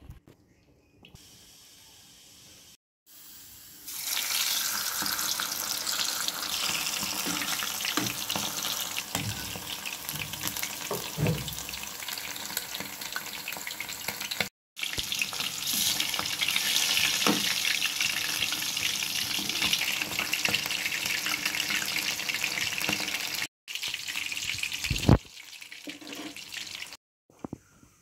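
Whole spice-marinated quail deep-frying in hot oil: a loud, steady sizzle with fine crackling that starts a few seconds in and breaks off twice. Near the end a single sharp knock stands out.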